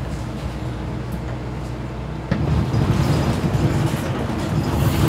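Mercedes-Benz Citaro O530G articulated bus running, a steady mix of engine and road noise that suddenly grows louder and heavier in the low end a little before halfway through.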